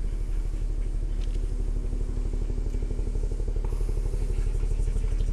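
A motor engine running steadily, with a rapid, even low throb.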